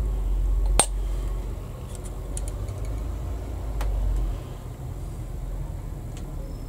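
Plastic model-kit parts clicking as they are handled and pressed together: one sharp click about a second in, a few faint ticks, and another click near the middle, over a low steady rumble.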